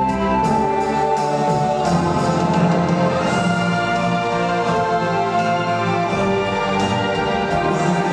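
Orchestral music with brass, playing sustained chords.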